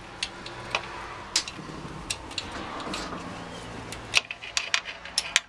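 Light metallic clicks and taps of tools and hardware being handled during work on a motorcycle's wiring and starter area. The clicks are scattered at first and come quicker, several a second, near the end, over a steady low hum.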